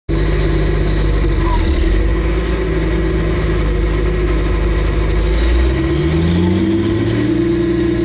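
Engine of heavy harvest machinery running steadily, then revving up about five and a half seconds in, its pitch rising for a couple of seconds and then holding higher.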